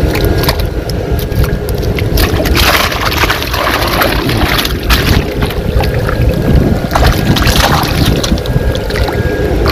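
Water splashing and sloshing as a mesh keepnet full of fish is hauled up out of the shallows, with several louder splashes, over a constant low rumble.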